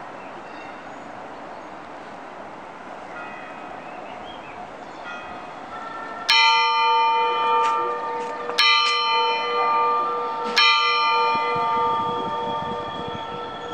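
Large tower bell struck three times, about two seconds apart, each stroke leaving a long ringing hum. A faint steady city hum runs beneath it and is all that is heard before the first stroke, about six seconds in.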